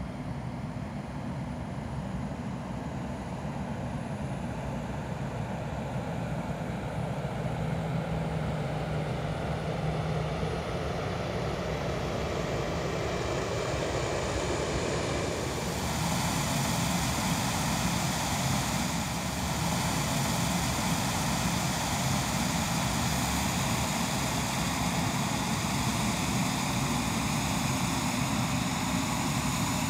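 Engine noise of a Boeing 727 cargo jet moving slowly across the ramp with a tow tug: a steady rumble and hiss that grows louder as it nears, with a higher jet whine coming in about halfway.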